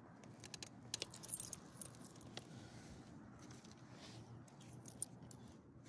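Faint clicks and light metallic jingling of a dog's collar ID tag and leash clip as the dog moves, clustered in the first two and a half seconds, with one more click about five seconds in.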